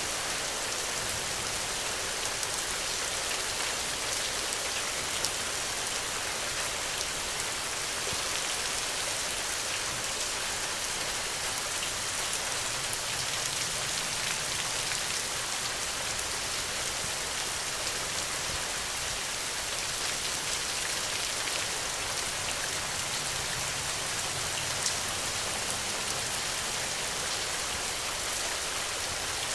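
Steady rain: a dense, even hiss of falling rain with fine ticks of individual drops.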